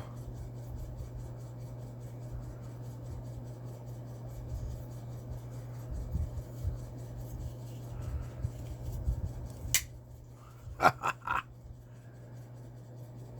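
Soft rubbing and handling sounds of a folding knife and its packaging, with a few low bumps, then a sharp click about ten seconds in and a quick cluster of clicks a second later. A steady low hum runs underneath.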